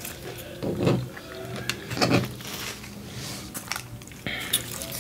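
Small plastic sauce packets crinkling and being torn open by hand, with scattered light crackles and a couple of soft knocks on the table.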